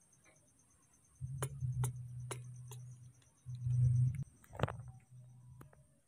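Handling noise from the recording phone being moved: two stretches of low rumble, the second the louder, with a few sharp clicks and taps.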